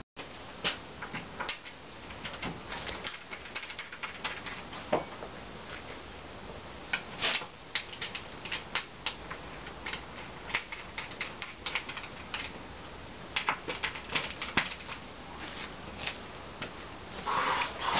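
Irregular light clicks and knocks of bunk bed panels and their metal connecting plates being handled and fitted together by hand, with a brief louder rattle near the end.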